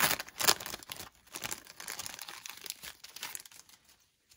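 Paper wrapper of a 1990 NFL Pro Set trading card pack crinkling and tearing as it is pulled open by hand along a tightly sealed seam. Irregular crackles, loudest in the first second, dying away about four seconds in.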